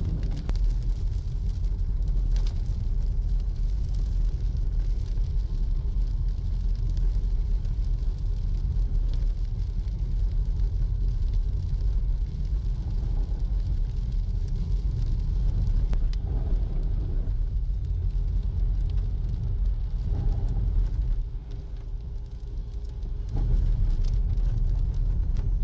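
Car cabin noise while driving on a wet road: a steady low rumble of engine and tyres. It eases for a couple of seconds about three quarters of the way through, then picks up again.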